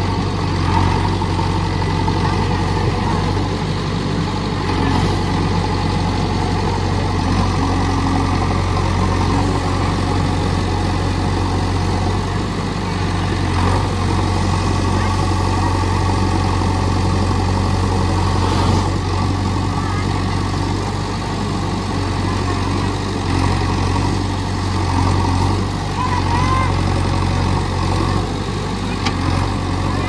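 JCB 3DX Xtra backhoe loader's four-cylinder diesel engine running with a steady low drone as the machine works its front bucket through deep pond mud.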